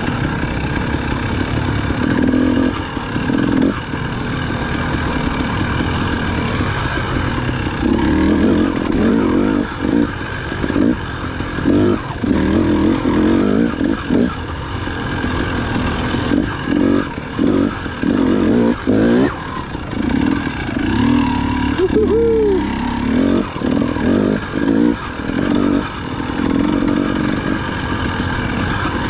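Dirt bike engine on the trail, the throttle opened and closed over and over in short surges as the bike picks its way along rough singletrack.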